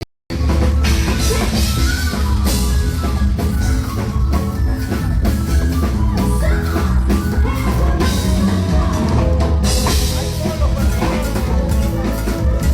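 Amazonian cumbia played by a full band, with drum kit and a strong bass line, starting a moment in.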